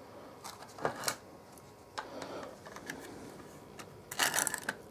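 Charger cord and plug being handled: a few scattered light clicks and knocks, then a denser rustling and scraping burst near the end.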